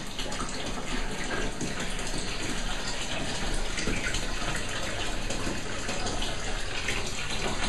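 Water running from a bath mixer tap into a part-filled bathtub, a steady gushing splash.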